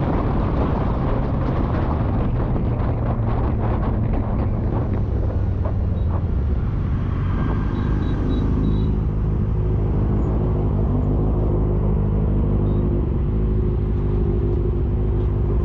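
Motorcycle engine running with wind rushing and buffeting over the camera microphone at highway speed; about halfway through the wind dies down as the bike slows, leaving a steady engine note.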